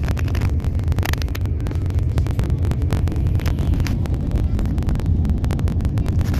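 Moving passenger train: a steady low rumble with many rapid rattles and clicks, and wind buffeting the microphone.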